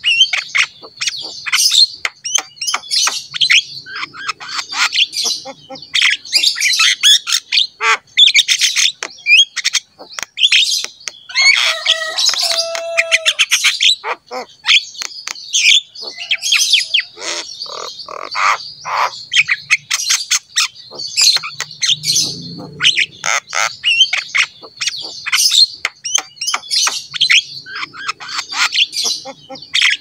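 Javan myna singing hard: a nearly continuous run of chattering, squawks and whistles, with a lower drawn-out note a little before halfway.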